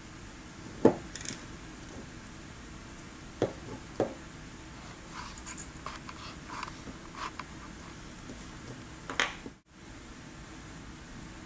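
Small metal parts and seal rings clicking and scraping as they are handled and fitted by hand into a tool's metal front housing: a sharp click about a second in, two more clicks a half-second apart near the middle, light scratching after them, and another click shortly before the end, over a steady faint hiss.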